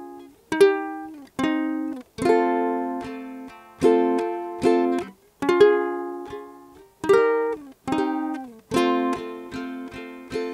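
Flight Voyager tenor ukulele fingerpicked through a slow chord progression of D♭, E♭, C minor and F. Each chord is plucked and left to ring, with quicker repeated plucks on the F chord near the end.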